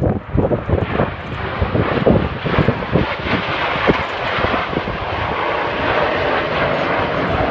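A formation of jet aircraft passing overhead: the engine noise builds into a steady, loud rushing sound from about halfway through. Irregular crackles and knocks in the first few seconds.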